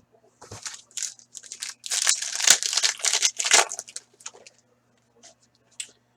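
Foil wrapper of a hockey card pack crinkling and tearing as it is ripped open and crumpled, in a quick run of rustling strokes that is loudest about two to three and a half seconds in, followed by a few light ticks of cards being handled.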